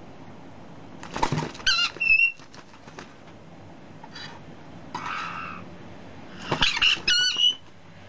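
Hand-fed baby white-bellied caiques giving short, wavering squeaky chirps in two bursts, about a second in and again near the end, with a brief raspy call between them. Sharp clicks of a steel spoon against the metal feeding cup and beaks come just before each burst.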